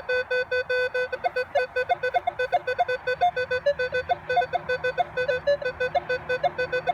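Minelab Equinox 800 metal detector sounding off over a loonie and a toonie: a steady tone with quick beeps stepping up and down in pitch several times a second as the coil passes. This is the loud, clear tone that marks a coin worth digging.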